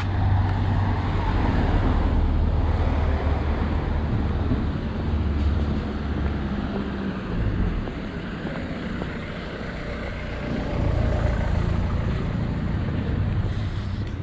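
Road traffic on a busy city street: vehicle engines running with a low rumble, easing off about halfway through and building again a few seconds later.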